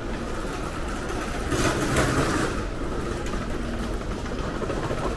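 City street traffic, with one vehicle passing close by about two seconds in, its tyre hiss swelling and fading over a steady low rumble of traffic.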